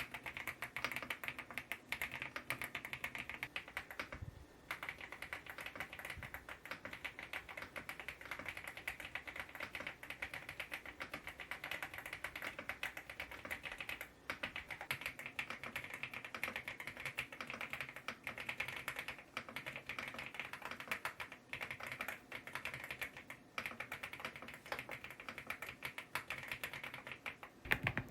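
Continuous fast typing on a Preflow F1 PRO MAX full-size mechanical keyboard, a dense run of key clacks with brief pauses about four seconds in, near the middle and near the end.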